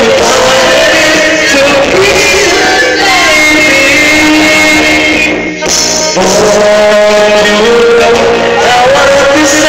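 A man singing into a microphone over loud amplified music; the sound drops away briefly about five and a half seconds in.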